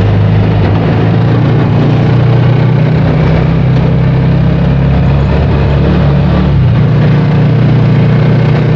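Motorcycle engine of a passenger tricycle running steadily under way, heard loud and close from inside its sidecar, with road and wind noise. The engine note shifts slightly about two-thirds of the way through.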